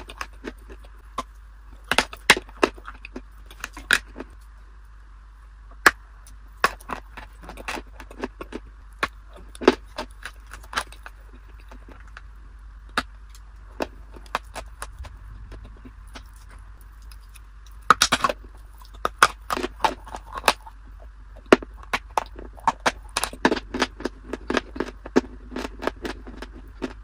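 Close-miked biting and chewing of a dry, brittle chunk of food: sharp crunches and crackles coming in bursts, thinning out midway and picking up again, over a steady faint hiss.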